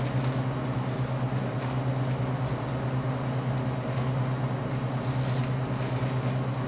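Clear plastic shrink wrap crinkling and crackling as it is peeled off a sealed trading card box by hand, with a few faint irregular ticks. A steady low hum sits underneath.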